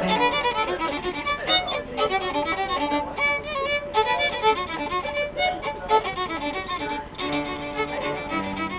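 Violin playing a melody of quick, short notes.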